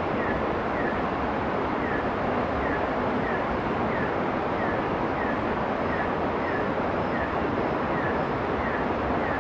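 Night-time tropical forest ambience: a steady rushing hiss with a short, high falling chirp from a small calling creature, repeating about once every two thirds of a second.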